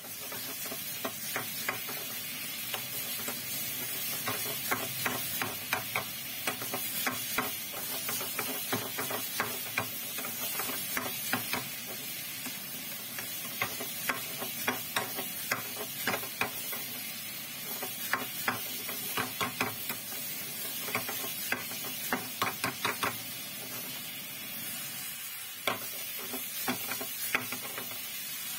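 Chicken handi sizzling in a non-stick frying pan over a gas flame, while a metal ladle stirs and scrapes against the pan in runs of quick sharp clicks with short pauses.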